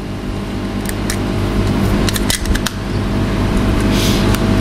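A steady engine drone with a stack of even low pitches, growing gradually louder, with a few light clicks over it.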